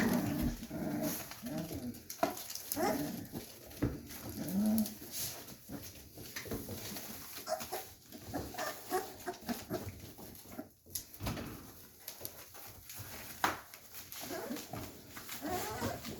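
A litter of 24-day-old puppies whimpering and yipping with short, wavering cries as they play and move about, with scattered small clicks and scuffs.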